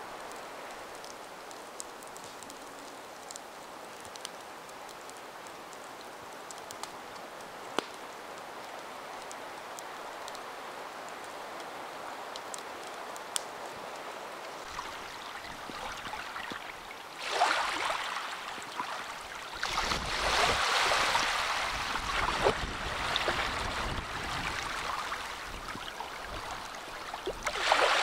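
Small Baltic Sea waves washing onto a shallow sandy beach: a steady soft hiss of surf that swells into louder, uneven rushes of water from a little past halfway.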